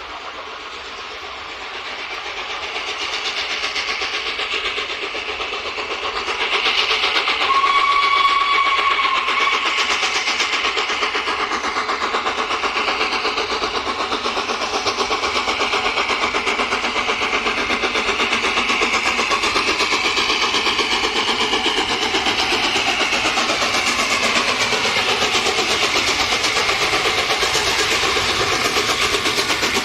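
Peppercorn A1 Pacific steam locomotive 60163 Tornado working hard with its train, its rapid three-cylinder exhaust beats growing louder as it approaches and then holding steady close by. About eight seconds in it sounds its whistle once, for about two seconds.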